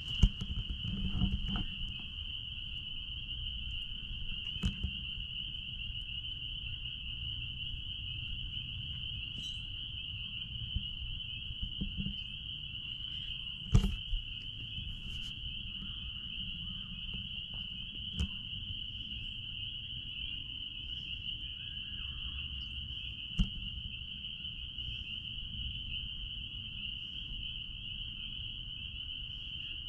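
A chorus of spring peepers calling from a marsh, their high peeps merging into one steady, shrill band. Underneath is a low rumble, with a few sharp knocks, the loudest about halfway through.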